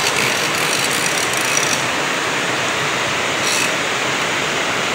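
Steady rushing noise of a swift river current, even and unbroken.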